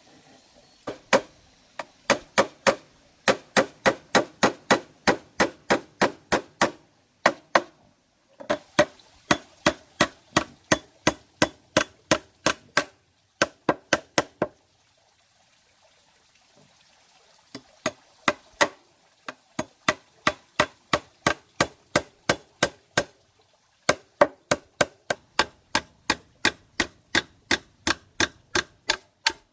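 Runs of sharp tool strikes, about three a second, with short pauses between the runs: repeated chopping or hammering blows.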